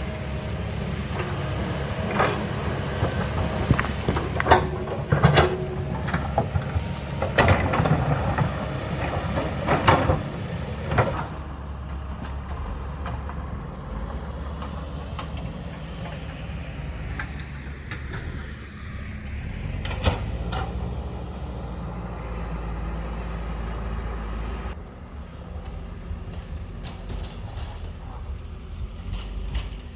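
Heavy earthmoving machinery's diesel engine running steadily, with a series of sharp clanks and scrapes over the first ten seconds or so and one more about twenty seconds in.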